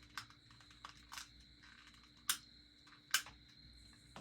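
A few short, sharp clicks and taps of small hard objects being handled, the loudest about two seconds in and another about three seconds in.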